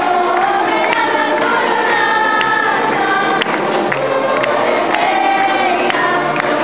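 A choir singing a hymn, with long held notes that slide from one pitch to the next.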